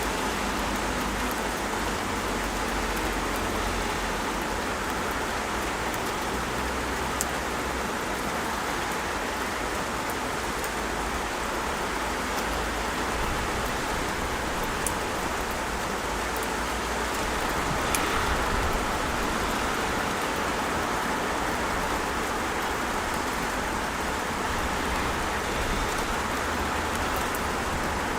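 Steady rain pouring down, with a few single sharp drop hits and a low rumble underneath.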